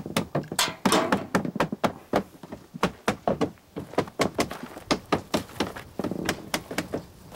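Wooden knocking and tapping, a quick irregular run of sharp wood-on-wood strikes several times a second, as thin wooden ribs for a birchbark canoe are worked against the canoe's wooden frame.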